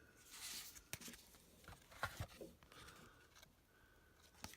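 Faint rustling and a few light clicks from handling a stack of rounded paper business cards.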